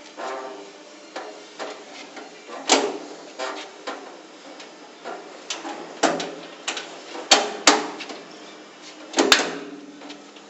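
A pry bar being levered and worked into the door gap of a locked sheet-metal safety locker in a forced-entry attempt. It gives irregular metallic clanks and knocks with a short ringing tail, with fainter scraping and clicks between them. The loudest clanks come a few times through the middle and near the end.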